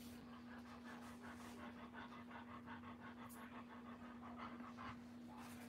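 Doberman Pinscher bitch in labour panting fast and evenly, several quick breaths a second, the breathing of a dam whelping. A steady low hum runs underneath.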